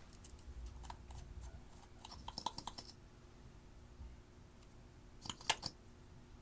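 Slime being handled, giving off bursts of small sharp clicks and crackles in two clusters, one about two seconds in and a shorter one near the end, over a low steady hum.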